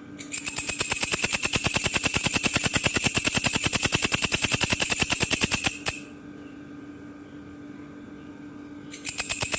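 Belalang kecek katydid stridulating: a fast, even train of clicks with a ringing high edge. It sings for about five and a half seconds, stops suddenly, and starts again near the end.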